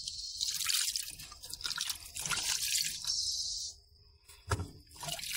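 Hands swishing and rubbing tomatoes, a red onion and coriander in a plastic basin of water, with splashing and dripping. The splashing eases off briefly and a soft thump comes about four and a half seconds in, then it resumes.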